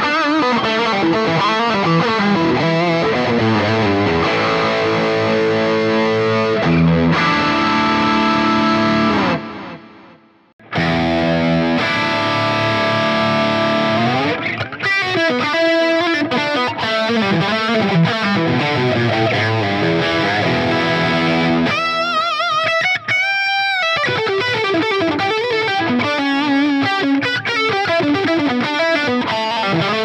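Distorted electric guitar, an Epiphone Firebird, played through a Boss GX-100's 'Bad Boi OD' overdrive preset. After a brief break about ten seconds in, it switches to a Line 6 HX Stomp XL's 'JP' preset. Near the three-quarter point a high note is held with a wavering bend.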